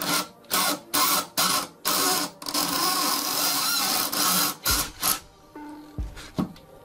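An electric drill turning a 5 mm bit into a brass cap, cutting through it to reach the Allen screw beneath. It runs in short bursts of about a third of a second, then steadily for about two seconds, then in two more short bursts, with a few dull knocks near the end.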